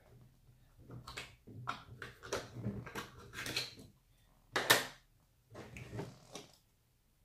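Hands handling a hard-plastic scale RC crawler body and its roof-rack accessories: a run of small clicks, knocks and rustles, with the sharpest knock about four and a half seconds in.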